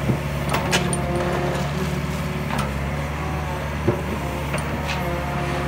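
Yanmar ViO50 mini excavator's diesel engine running steadily, with a hydraulic whine that shifts in pitch as the boom and bucket move. Several sharp knocks come from the working arm and bucket.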